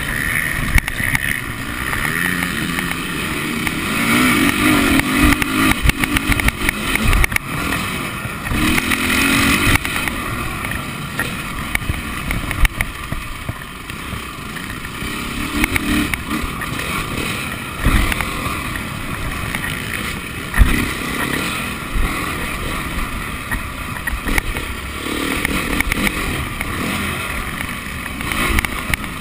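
Motocross bike engine heard on board while racing round a dirt track, its note rising and falling as the throttle is opened and shut through the corners and straights. Now and then a sharp thump cuts through.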